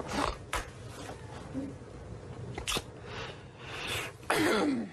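A man's stifled fit of giggling: breathy snorts and gasps, ending in a louder high-pitched wheezing squeal that falls in pitch near the end.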